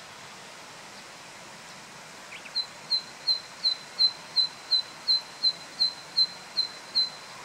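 Zitting cisticola singing: a loud run of about a dozen short, sharp, high 'zit' notes at an even beat of roughly three a second, starting some two and a half seconds in.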